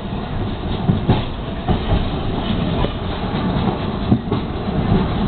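MBTA Green Line light-rail vehicle running along the track, heard from inside the car: a steady rumble of steel wheels on rail, with irregular clacks as the wheels pass over rail joints.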